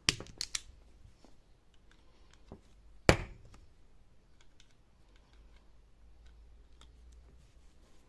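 INGCO automatic wire stripper's spring-loaded jaws clicking and snapping as the handles are squeezed and released on a wire. A quick run of three or four sharp clicks at the start, one loud snap about three seconds in, then faint ticks of handling.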